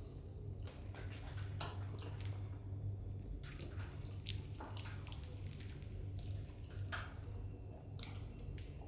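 Wet squishing and irregular small clicks of saucy chicken being pulled apart and eaten, over a steady low hum.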